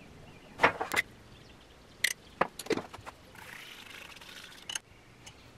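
Several sharp clinks and taps against a small ceramic bowl, then a soft scraping hiss as a wooden stick stirs watery clay slip in it.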